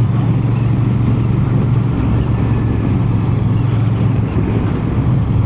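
Royal Enfield Bear 650's 648 cc parallel-twin engine running at steady low revs in top gear while cruising, with wind and road noise over it.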